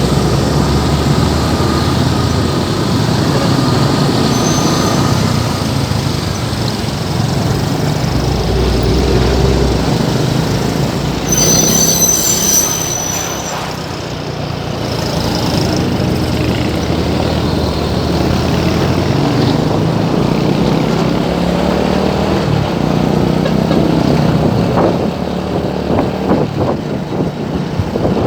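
Dense road traffic crawling in a jam: the engines of trucks and other vehicles running together. A brief high-pitched squeal comes about halfway through.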